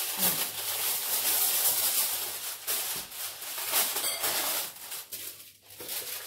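Aluminium foil crinkling and rustling as a sheet is spread over a roasting tin and pressed down around its edges.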